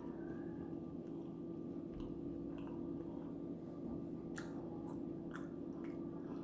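A person chewing food, with a few short, sharp mouth clicks over a steady low hum.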